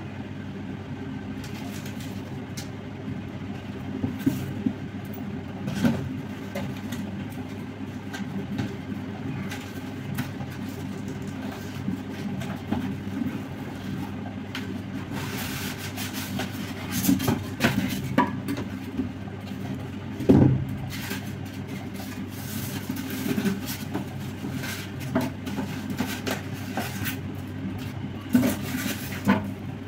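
Handling of packaging: a cardboard box opened and polystyrene packing pieces and bubble wrap pulled out, giving scattered rustles, scrapes and knocks, loudest about two-thirds of the way through, over a steady low hum.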